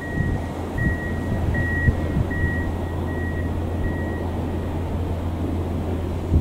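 Diesel locomotive engine running with a steady low drone as the locomotive rolls slowly forward. A high beeping tone repeats about every three-quarters of a second and fades out after about four seconds.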